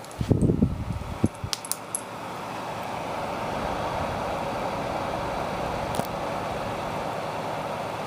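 Tower fan running, its steady rush of air growing louder over the first few seconds and then holding even. A few bumps and clicks of handling come near the start and are the loudest sounds.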